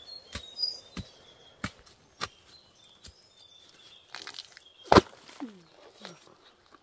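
A blade chopping into the base of a giant bamboo shoot: several sharp strokes about half a second to a second apart, then one much louder crack about five seconds in, followed by a couple of short falling creaks.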